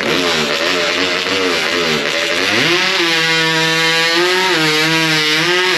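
Modified racing chainsaw at full throttle making a timed cut through a log. Its pitch wavers low under load, then climbs about two and a half seconds in and holds at a steady high scream with brief dips.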